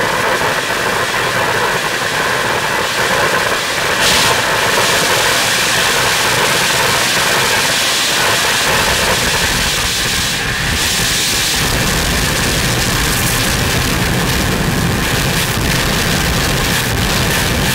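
Live harsh noise music from electronic gear and effects units: a loud, dense wall of noise over the whole range. Deep rumbling bass comes in about halfway through.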